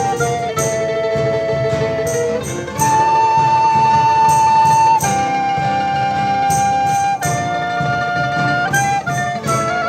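A band playing an instrumental passage of a song: a lead melody of long held notes over a steady drum beat.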